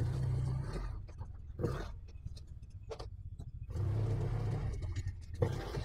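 Can-Am four-wheeler's engine running under throttle during a ride. Its growl swells loud at the start, drops to a lower run, then surges again about two-thirds of the way through, with a few sharp knocks in between.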